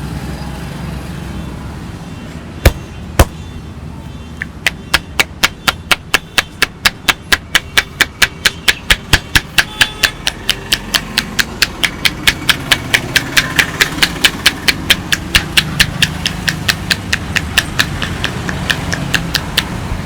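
Rapid, even percussive massage strikes of a barber's hands on a client's body, about four to five sharp slaps a second, after two single knocks near the start. A low street hum runs underneath.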